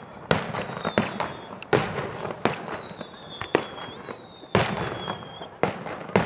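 Aerial fireworks shells bursting overhead: a sharp bang every half second to a second, each trailing off briefly, with faint falling whistles between the bangs.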